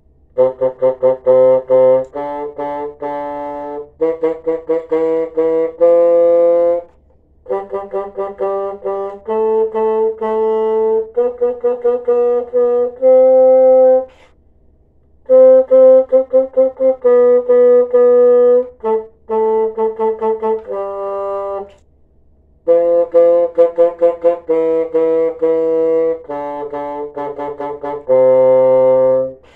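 Solo bassoon playing an elementary articulation exercise. It plays quick runs of repeated tongued notes, each group ending on a held note, in four phrases with short breaks for breath between them.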